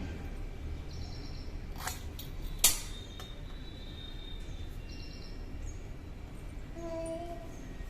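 Kitchen utensils being handled: two faint knocks and then one sharp click about two and a half seconds in, over a steady low hum. Faint bird chirps come and go.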